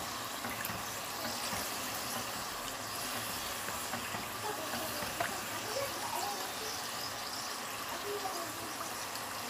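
Golgappa puris deep-frying in hot oil in a karahi: a steady sizzle with scattered light crackles, as hot oil is ladled over the puris to make them puff.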